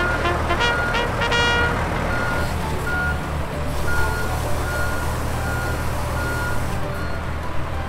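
Heavy vehicle engine running with a steady low rumble and a repeated high beeping. Music plays over it at first.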